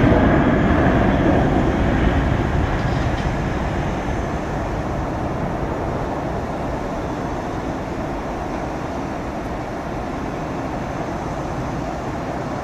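Boeing 737-700's twin CFM56-7B turbofan engines at takeoff power as the jet rolls, lifts off and climbs away. A steady, broad jet noise, loudest at first and slowly fading over the first several seconds, then holding level.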